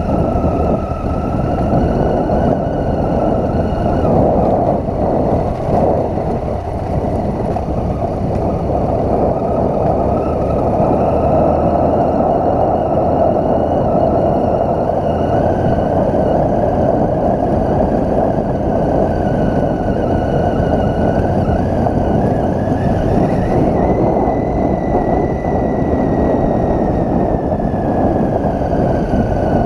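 Triumph Tiger 800's three-cylinder engine running under way over rough gravel, heard from the bike with steady wind noise on the microphone. The engine note climbs about two-thirds of the way through, then slowly eases back down.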